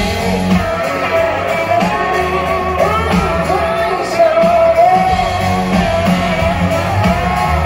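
Live country music: two women singing with a full band behind them, electric guitars and drums, heard from the audience. About halfway through the voice holds one long note.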